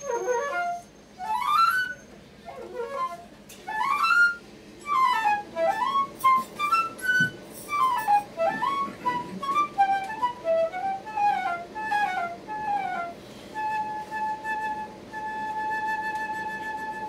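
Solo concert flute playing a melody of quick rising and falling runs, settling near the end into a long held note.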